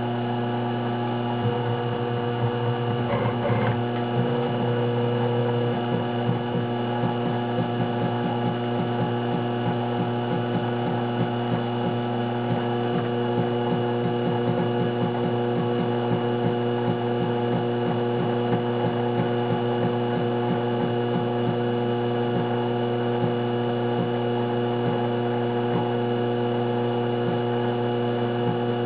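Taig CNC mill running: a steady electric motor hum made of several fixed tones, with a fine rapid ticking low down.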